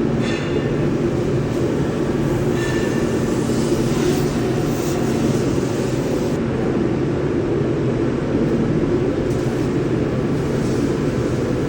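Ladle refining furnace running: a loud, steady industrial roar with a droning hum underneath, and brief hissing flares near the start and again a few seconds in.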